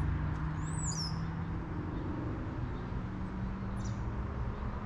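A bird's short, sweeping high chirp about a second in, and a fainter one near the end, over a steady low hum.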